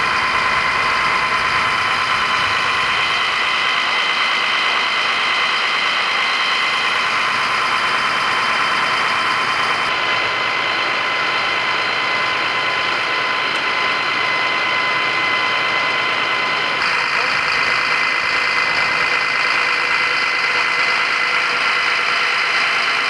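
Fire engines' diesel engines running steadily: a constant drone with a high, steady whine over it. The sound shifts slightly about ten seconds in and again a few seconds later.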